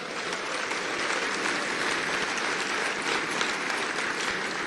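An audience in a large hall applauding steadily, a dense wash of clapping that eases slightly near the end.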